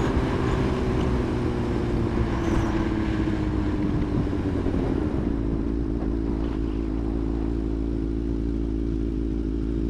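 Motorcycle engine slowing down, its pitch falling over the first five seconds, then running steadily at low revs.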